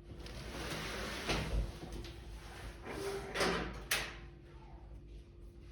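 Household things being handled and shifted: rustling and scraping, with a knock about a second in and a sharp click about four seconds in.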